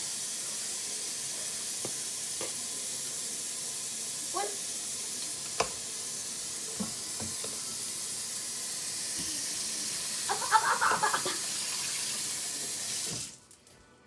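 Water running steadily, like a kitchen tap, with a few light clicks; it stops abruptly near the end.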